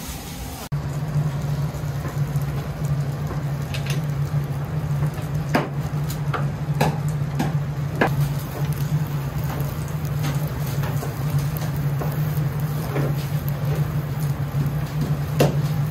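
Long cooking chopsticks clicking and scraping against a rectangular tamagoyaki pan as egg is worked and rolled in it, a sharp tap every so often over a steady low hum.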